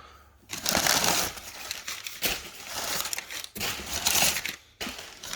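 Packaging crinkling and rustling as parts are unpacked from a box, in two spells with a brief pause about three and a half seconds in.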